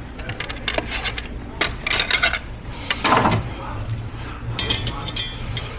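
Metal clinks, knocks and scrapes as an 8L90 automatic transmission's center support is worked free and pulled out of the case, with a quick run of ringing clinks near the end.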